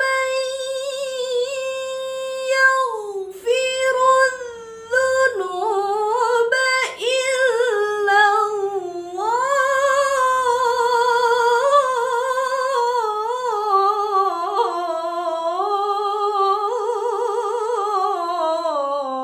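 A woman's solo voice reciting the Quran in a melodic tajwid style, with no instruments. She holds long ornamented notes with a wavering vibrato: one steady held note for the first few seconds, then flowing phrases that rise and fall, dropping in pitch at the end of the phrase.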